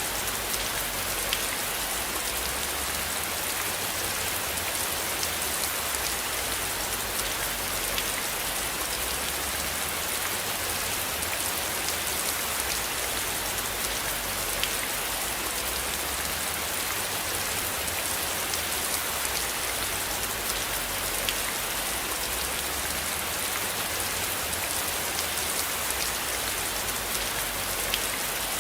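Steady rain, an even hiss with individual drops ticking here and there, over a low, slowly wavering rumble.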